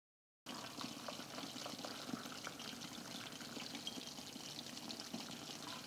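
Tea pouring in a thin stream from a glass teapot into a glass mug, over a steady crackle of hot oil sizzling in a wok. The sound starts abruptly about half a second in.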